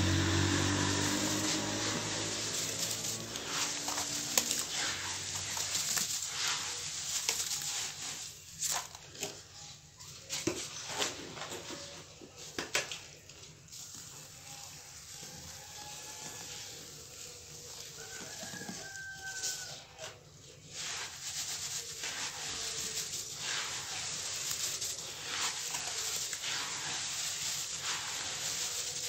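Dry sand and cement mix crunching and crumbling as hands squeeze and rub it in a bowl, with the gritty hiss of loose powder being poured and sifted, full of small irregular crackles.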